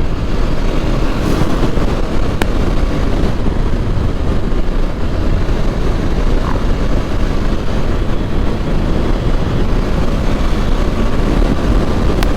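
Motorcycle on the move: steady rush of riding wind over the microphone with the engine running underneath.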